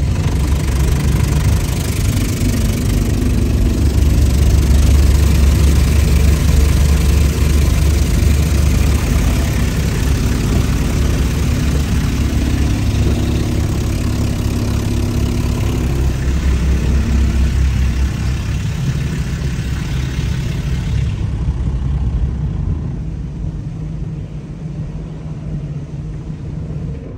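Automatic car wash working over a car, heard from inside the cabin: a loud, steady low rumble of brushes and water spray on the body and glass. About 21 seconds in the hissing spray drops away, leaving a quieter rumble.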